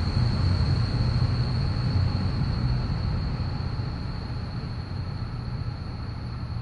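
CrossCountry Voyager diesel train pulling out along the platform, its low rumble slowly fading as it leaves, with a faint steady high-pitched whine throughout.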